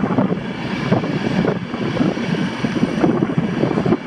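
PKP Intercity passenger coaches rolling past the platform: steady rolling noise of a long passenger train's wheels on the rails.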